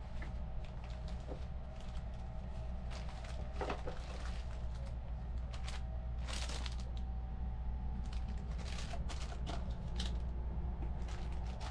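Thin plastic wrapping crinkling and rustling in irregular bursts as a disposable razor is unwrapped from its bag, over the steady low rumble of the Sunrise Seto sleeper train running.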